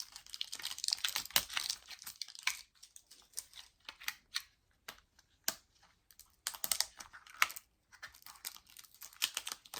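Crinkling and irregular clicking of a plastic seal being peeled off a toy package and handled, quieter for a while in the middle.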